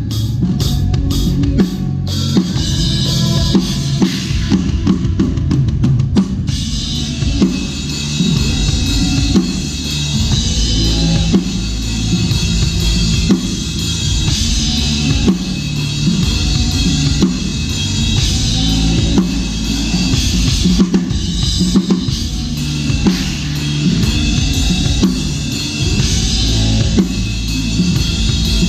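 Drum kit played through a rock song, with kick drum, snare hits and cymbals over the band's backing music.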